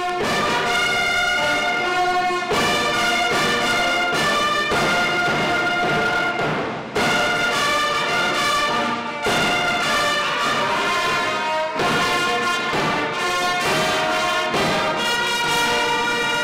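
Brass band music with long held chords. It breaks off and starts again abruptly several times, about every two to five seconds.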